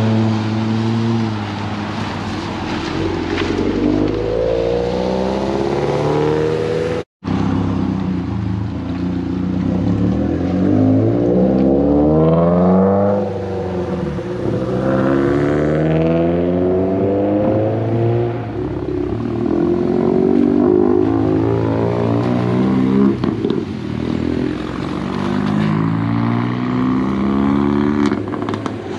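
Cars leaving a car show pulling away one after another, their engines and exhausts climbing in pitch as they accelerate, several times over. The sound cuts out briefly about seven seconds in.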